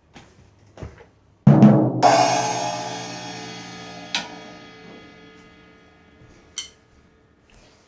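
Two quick drum hits, then a cymbal crash that rings and fades over several seconds: a "ba-dum-tss" sting. A few lighter taps come before it, and two single strikes come later, as the ring dies.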